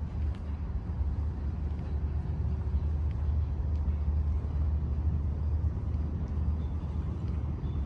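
Steady low rumble of outdoor city ambience, with no distinct sounds standing out.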